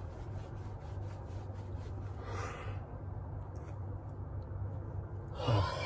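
A man yawning wide, ending in a short voiced exhale near the end, over clothing rustling close to the microphone and a steady low hum.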